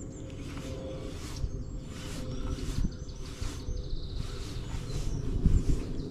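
Spinning reel being cranked to retrieve a lure for pike, a soft swish repeating about twice a second with the turns of the handle, over a low rumble of wind or handling on the microphone.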